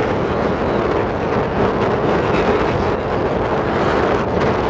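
Steady wind rush over the microphone and road noise from a vehicle travelling along at speed.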